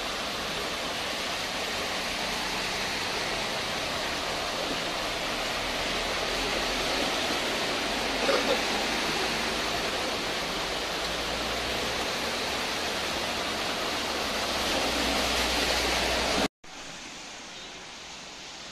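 Steady rushing hiss of a waterlogged street, with vehicles splashing through standing water. It cuts off abruptly near the end, and a quieter hiss follows.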